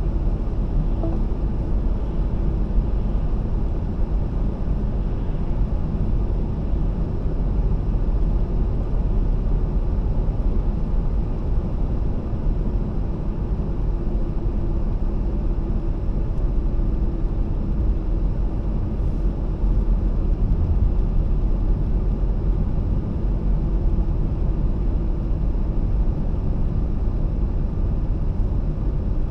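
Steady low rumble of road and engine noise heard from inside a car's cabin while driving, with a faint steady hum.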